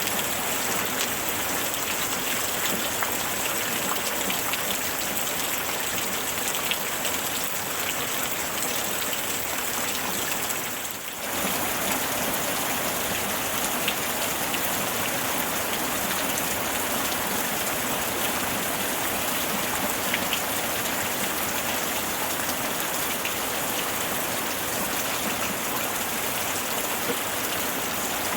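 Steady rain falling, a dense even hiss with many individual drops ticking through it. It briefly dips in level about eleven seconds in, then carries on as before.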